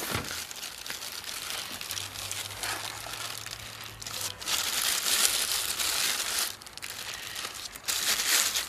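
Clear plastic packaging bag crinkling and rustling as it is handled and pulled open, loudest for a couple of seconds around the middle and again near the end.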